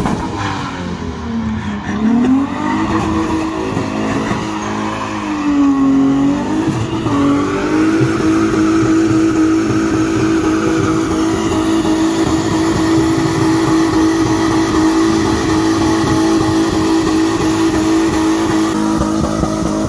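Turbocharged Lexus IS200 doing a burnout. For the first several seconds the engine revs rise and fall, then about seven seconds in they are held steady and high while the rear tyres spin and squeal on the road.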